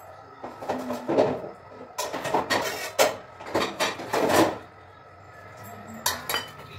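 Stainless steel plates and bowls clattering and scraping against each other as they are handled at a kitchen sink: a busy run of knocks for about four seconds, then a couple of lighter clinks near the end.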